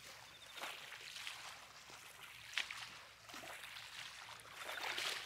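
Small waves lapping against a lake shore in irregular washes, with one short sharp click about halfway through.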